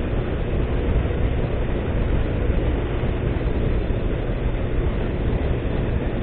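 Honda CG 160 Fan's single-cylinder four-stroke engine running hard in fifth gear at top speed, under a steady rush of wind on the microphone.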